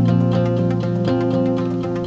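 Background music with a steady beat, led by plucked guitar, with notes changing every half second or so.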